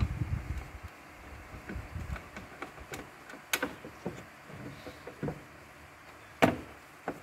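Scattered light clicks and knocks, with a sharper knock about three and a half seconds in and the loudest knock about six and a half seconds in.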